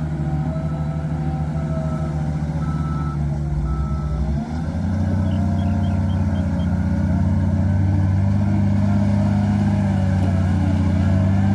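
Wheel loader's diesel engine running as the machine pushes its bucket through sand. About four and a half seconds in the engine note dips, then runs louder and heavier as it takes up more load.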